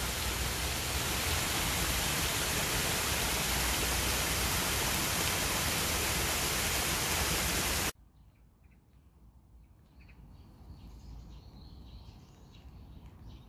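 Steady rushing of a small stream in the rain, which stops abruptly about eight seconds in. A much quieter wet hush follows, with faint high chirps of small birds.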